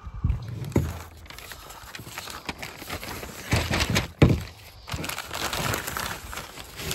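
Packaging rustling and crinkling while grill grate panels are unpacked, with a few sharp knocks, the loudest about three and a half and four seconds in.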